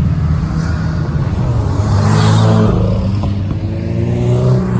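Car engine running loudly, revving with its pitch rising about two seconds in.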